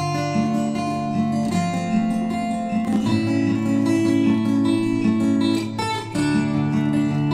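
Background music: an acoustic guitar strumming chords, coming in suddenly after silence, with chord changes about three and six seconds in.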